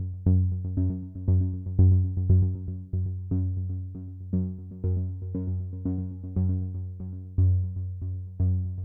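Background synthesizer music: notes struck about twice a second, each fading away, over a steady low bass.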